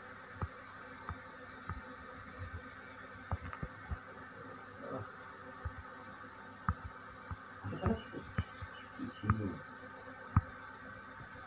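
Insect chirping: short high trills of about three quick pulses, repeating roughly once a second, over scattered faint clicks.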